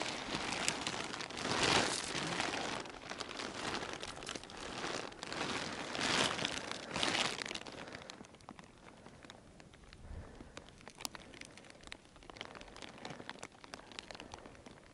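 Close rustling and crunching handling noise: a waterproof jacket moving and snow and ice slush at the hole, loudest in the first half, then dying down after about eight seconds to faint scattered ticks.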